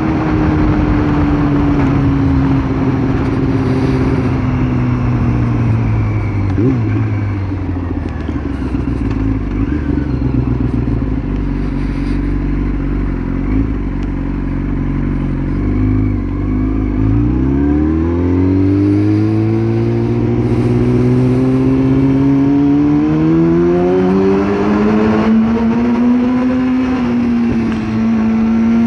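Yamaha R6 sport bike's inline-four engine under way, heard from the rider's seat with wind noise. The engine note slowly drops as the bike slows for a good while, then climbs smoothly as it accelerates again and holds near the end.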